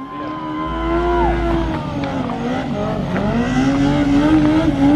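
A vehicle engine held at high revs during a burnout or donuts, with tyre squeal. The pitch sags about three seconds in, then climbs again.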